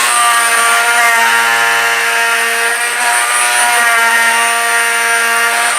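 Oscillating multi-tool running steadily at full power, a loud constant high hum, driving an accessory through two damping handles joined together.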